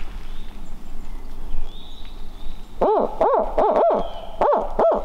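An owl locator call imitating a barred owl: a series of five quick hoots in the 'who-cooks-for-you' rhythm, each note rising and falling in pitch, starting about three seconds in after a quiet stretch. A turkey hunter's owl call like this is used to shock roosted gobblers into gobbling.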